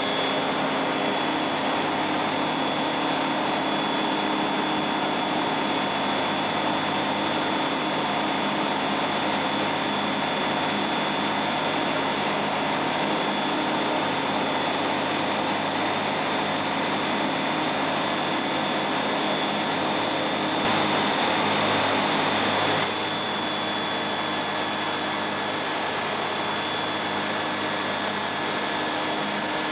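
Rotax 912 flat-four engine and propeller of a Skyranger microlight droning steadily in cruise, heard from inside the cockpit with wind rush. About 21 seconds in there is a short surge of louder rushing noise, after which the sound settles a little quieter.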